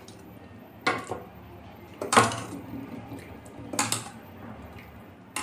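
Metal ladle knocking and scraping against a metal kadhai as curry is ladled out, three separate clatters about a second apart, the middle one the loudest.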